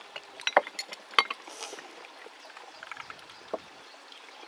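Irregular sharp clicks and knocks, most of them in the first second and a half, with a few more about three seconds in.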